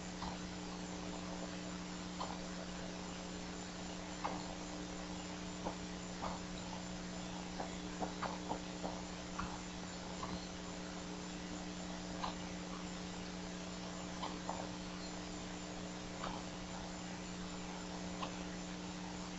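Steady electrical hum with an even background hiss, broken by short faint blips every second or two.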